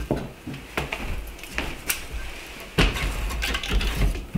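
Split firewood being handled and loaded into a small wood stove: a few separate sharp knocks, then a louder clunk about three seconds in, followed by denser knocking and clatter of wood against the stove.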